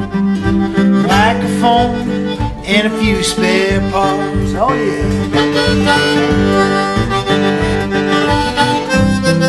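Acoustic blues music: harmonica playing over acoustic guitar, with bent harmonica notes in the first few seconds.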